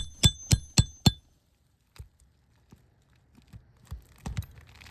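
A hammer striking a metal nail puller five times in quick succession, about three or four ringing metallic blows a second, to work it under a roofing nail in a shingle. A couple of faint knocks follow near the end.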